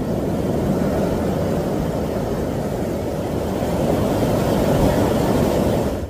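Strong blizzard wind blowing and buffeting the microphone, a steady low rushing noise that swells a little in the last couple of seconds.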